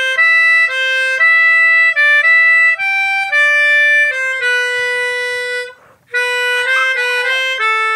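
Melodica playing a single-line tune of steady held notes, moving from note to note about every half second, with a short break about six seconds in.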